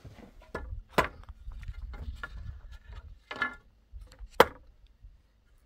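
Wood being struck: a few sharp, separate knocks, the loudest about a second in and another just past four seconds, with low rumbling and handling noise between them.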